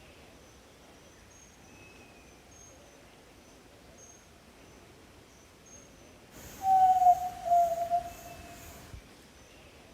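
Yellow-legged tinamou (jaó-do-sul) giving one long, low whistled note that falls slightly in pitch, about six and a half seconds in. Faint high chirps sound in the background throughout.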